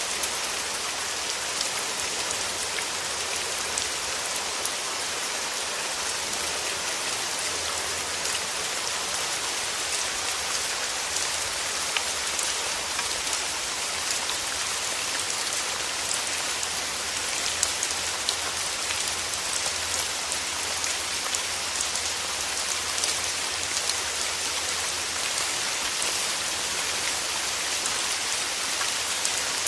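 Steady rain falling, a constant hiss with many small drops tapping on a surface.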